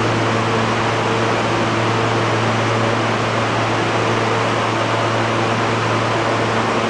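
An R160B subway train coasting slowly into an elevated terminal platform, heard as a steady rushing noise over a low hum, with faint tones coming and going.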